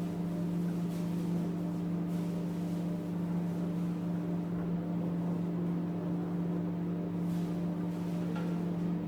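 Recco 1200 W microwave oven running, a steady low hum, as it heats a cup of water.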